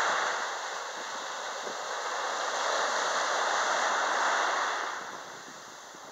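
Small sea waves breaking and washing up the beach: a steady hiss of surf that swells, then eases off about five seconds in before building again.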